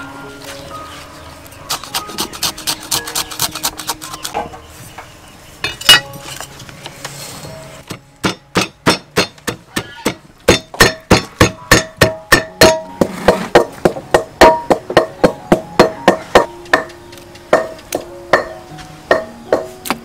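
Rapid, regular chopping strikes on a wooden board, about four to five a second, in runs. There is a short run early on, one loud single strike about six seconds in, and a long run from about eight seconds that thins out towards the end.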